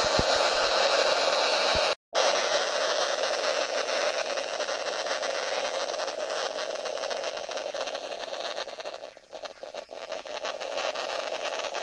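Eltra Olga DAB+ radio tuned to FM giving out a steady static hiss through its speaker instead of a station. The hiss cuts out for a split second about two seconds in and dips and wavers near the end. The uploader puts the noise down to the radio's supplied power adapter, which spoils its reception sensitivity.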